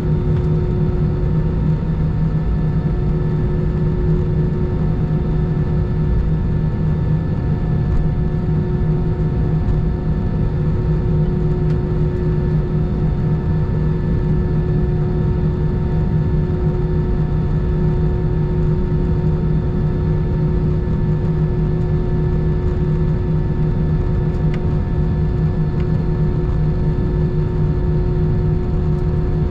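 Cabin noise inside an Airbus A319 taxiing on the ground, its jet engines running at low power: a steady drone with several held humming tones.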